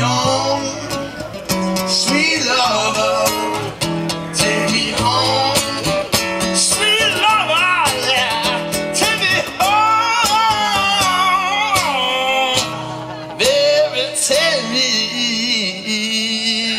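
Music: a song with singing over guitar, a stepping bass line and a steady beat.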